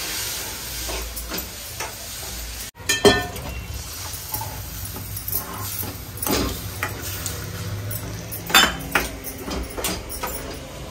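Milk added a little at a time to semolina roasted in ghee in a hot kadhai, sizzling steadily, with a spoon scraping and knocking against the pan about three times as it is stirred.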